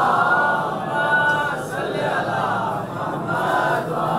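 A group of men chanting together in long, drawn-out phrases.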